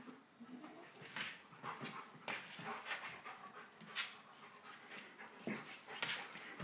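Large dog panting and snuffling in short, irregular bursts as it wrestles with a cat on a hard floor.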